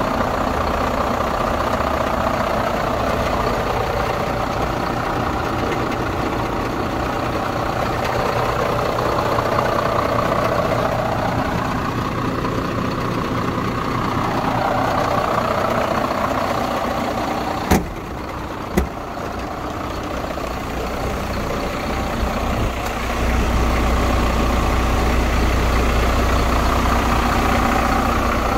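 Iveco Trakker hooklift truck's diesel engine idling steadily, with two sharp clicks about a second apart about two-thirds of the way in. The low rumble grows louder for the last few seconds.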